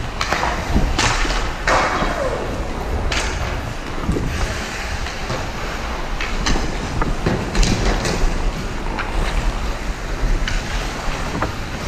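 Ice hockey play: skate blades scraping and carving the ice, with the sharp clacks of sticks and puck scattered throughout and a steady rumble underneath.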